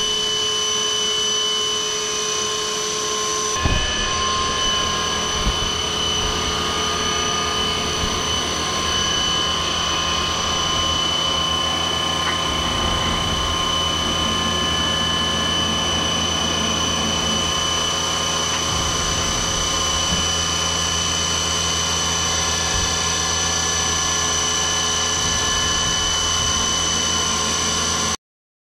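Rebel Max CNC vertical mill running a program: the spindle whines at a steady high pitch over a constant low machine rumble while the end mill cuts the part. The sound cuts off suddenly at the very end.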